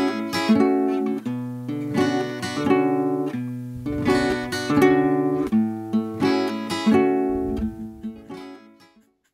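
Folk music on a strummed and picked acoustic guitar, chords ringing in a steady rhythm, fading out near the end.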